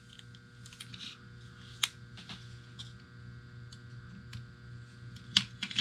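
Small plastic clicks and taps as a ribbon-cable connector latch on the goggles' DVR circuit board is unlocked and worked by hand. A few sharp clicks stand out, one about two seconds in and two near the end, with lighter ticks between, over a faint steady hum.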